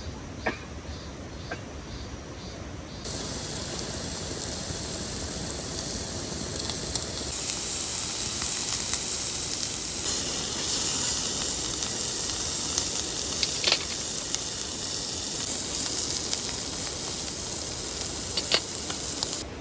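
Food sizzling on a hot pan or grill: a steady hiss that grows louder a few seconds in, with a few light clicks.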